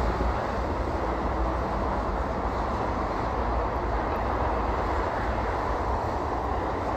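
Steady rumble and hiss of highway traffic on a snow-covered road, with vehicles including a tanker truck passing close by.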